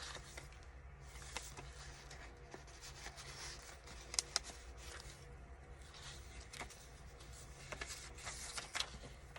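Paper pages and tags of a handmade junk journal rustling and rubbing as they are handled and turned, with a few soft taps, two of them close together about four seconds in.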